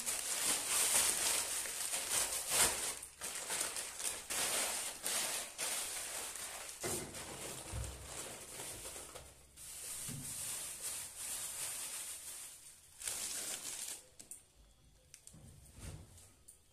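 Plastic bags crinkling and rustling as clothes packed in them are handled and pulled from a wardrobe shelf, in irregular bursts with a couple of soft knocks. It dies down over the last couple of seconds.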